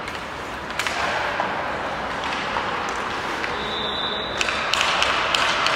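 Hockey skates scraping and carving on the ice, with sharp knocks of pucks against sticks and boards echoing in an ice arena. There is one knock about a second in and several in quick succession near the end.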